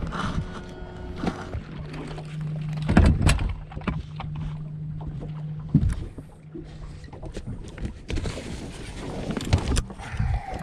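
Knocks and thuds on a bass boat over a steady low hum that drops out about two-thirds of the way through and comes back near the end.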